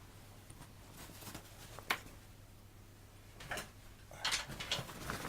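Gear being handled out of a pack: a single sharp click about two seconds in, then rustling of fabric and items near the end.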